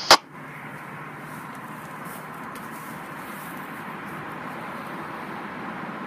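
Handheld amateur radio receiver giving a short burst of static, the squelch tail, as the calling station unkeys. A steady background noise follows while the channel stays silent with no stations answering.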